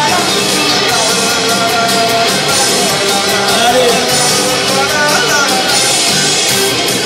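Rock-style band music with a singer, played loud through PA speakers to a dense crowd.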